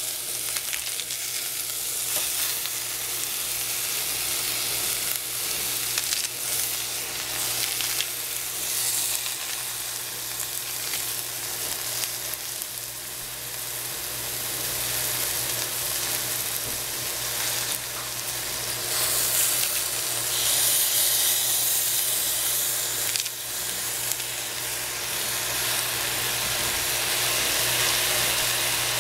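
Shiitake mushrooms and cabbage leaves frying in a stainless steel pan: a steady sizzle that grows louder about two-thirds of the way in.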